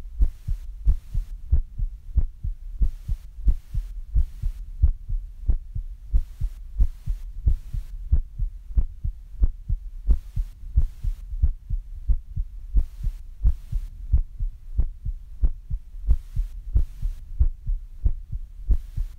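A human heartbeat recorded close up: a steady run of low, dull thumps, the heart slowing as it recovers from exercise.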